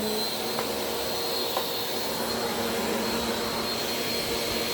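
Bissell PowerForce Compact upright vacuum cleaner running steadily, a thin high whine riding over its motor noise.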